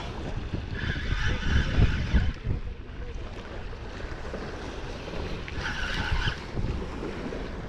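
Spinning reel being cranked to bring in a hooked catfish, with a high whirring squeal from the reel twice. A low rumble of wind buffeting the microphone and lapping lake waves run underneath.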